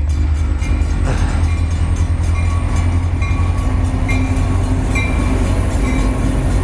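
Kawasaki Z1000's inline-four engine running steadily under way, a loud low drone mixed with wind rush, with a brief change about a second in.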